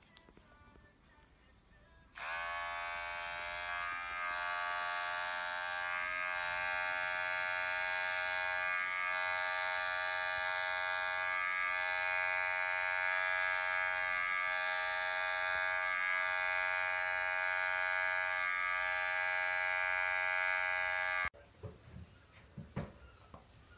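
Electric pet hair clippers buzzing steadily while trimming a cat's fur, starting about two seconds in. The buzz cuts off suddenly near the end.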